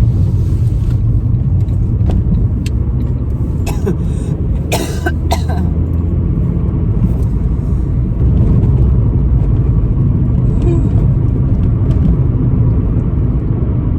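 Steady low rumble of a car's road and engine noise heard inside the moving cabin, with a brief sharp noisy burst about five seconds in.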